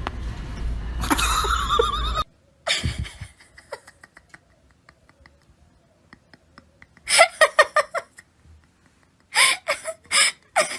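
A person laughing in two bouts of short, rapid bursts, after a stretch of noise that cuts off abruptly about two seconds in.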